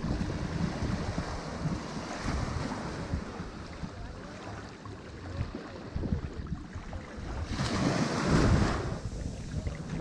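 Sea surf washing onto a shore, with a low wind rumble on the microphone. A larger wave surges in loudest about eight seconds in, then falls away.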